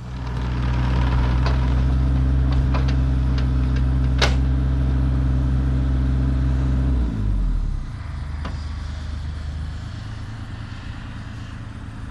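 Mini excavator's diesel engine running steadily at high revs, then throttling down about seven seconds in to a quieter, lower idle. A few clicks and one sharp metallic knock sound about four seconds in.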